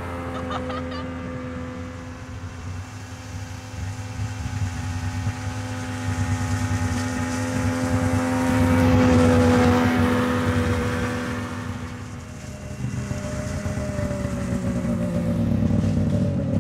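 Snowmobile engine running steadily as the machine drives off. It grows louder as it passes about nine seconds in, then fades. Near the end the engine note drops in pitch as it slows.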